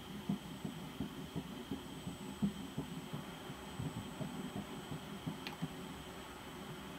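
An 8-week embryo's heartbeat picked up by the ultrasound machine's pulsed Doppler and played through its speaker: a fast, regular pulse of about three beats a second, matching the heart rates of about 173–178 beats a minute read for the twins.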